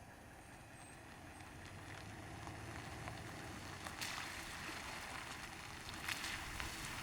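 Truck driving through puddles on a dirt road: a steady low engine hum under water splashing up against the truck, with louder splashes about four and six seconds in.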